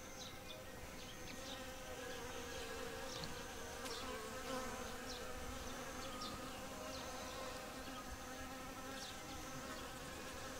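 Faint, steady buzzing of bees, with short high chirps recurring about once a second.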